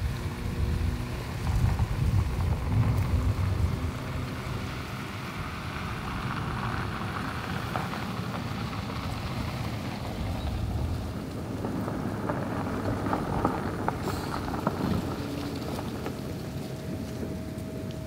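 Wind blowing across an open rice paddy field, rising and falling in gusts, with a low rumble of wind on the microphone that is strongest in the first few seconds.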